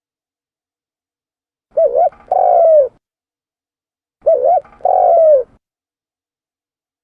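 Spotted dove (tekukur) cooing: two calls, one about two seconds in and one about four seconds in. Each is a quick double note followed by a longer coo that falls in pitch, used as a lure call for trapping spotted doves.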